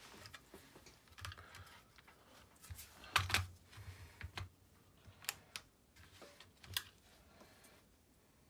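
Hands working on a radio-controlled car chassis: a run of light plastic clicks and knocks as wiring connectors are pushed in and a battery pack is fitted. The loudest knock comes a little after three seconds in.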